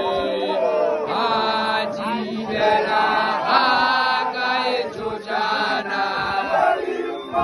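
A group of men chanting a Setswana song together, many voices rising and falling in short phrases.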